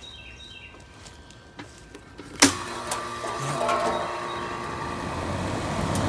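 A sharp click about two and a half seconds in, then a York condensing unit's compressor and condenser fan start and run with a steady hum, getting louder over the next second or so. The compressor start didn't sound really healthy.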